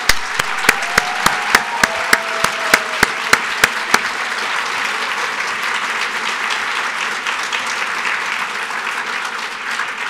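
Audience applauding steadily, with one pair of hands clapping close to the microphone about three times a second for the first four seconds.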